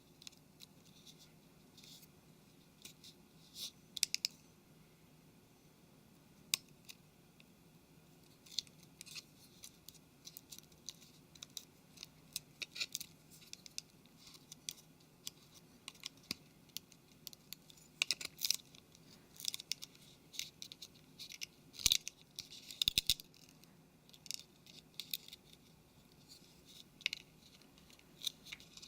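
Faint, irregular clicks, taps and scratches of small smartphone parts and tools being handled during reassembly, with a cluster of sharper ticks about two-thirds of the way through.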